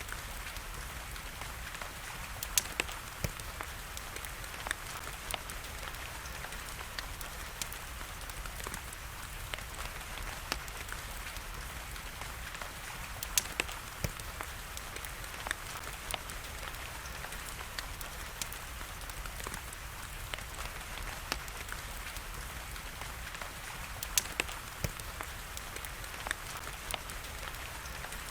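Wood fire crackling, with frequent small snaps and a few louder pops, over a steady hiss of falling rain.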